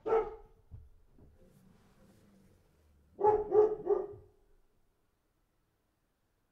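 A dog barking: one bark at the start, then three quick barks in a row about three seconds in.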